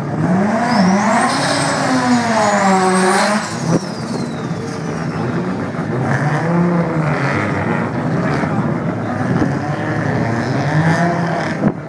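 Modified drag cars' engines revving hard at the start line, the pitch climbing and falling again and again. A high whistle rises and falls with the first revs, then slides away as they drop, about three and a half seconds in.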